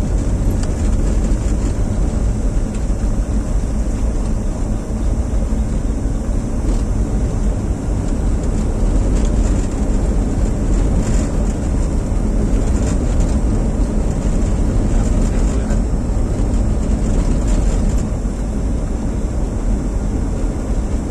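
Steady engine and road noise inside a car's cabin as it drives along at an even pace, a low rumble with a constant high hiss over it.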